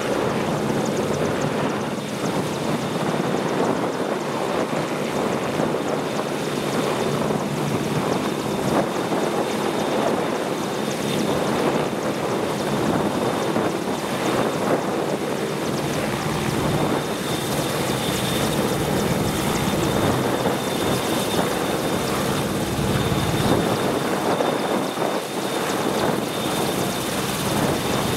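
AgustaWestland AW101 Merlin helicopter, a three-turbine-engine machine, running with its engine and rotor noise steady throughout and a thin high whine held over it.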